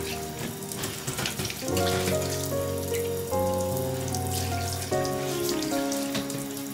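Water running from a tap and splashing in a sink, under background music with held notes and chord changes every second or two.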